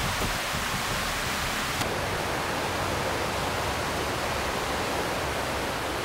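A steady, even hiss with no tones, knocks or rhythm in it.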